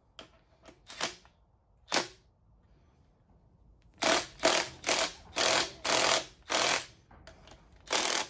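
Ratchet running down the connecting-rod cap bolts: a few single clicks, then from about four seconds in short bursts of ratcheting, about two a second.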